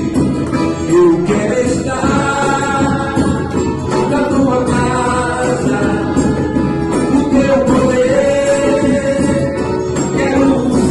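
Worship music: voices singing a melody over continuous instrumental accompaniment.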